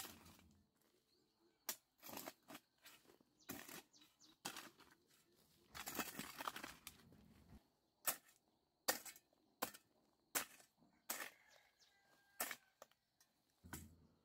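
Hoe blade chopping into and scraping dry, clumpy soil: about a dozen irregular strikes, with a longer scrape of dragged earth about halfway through.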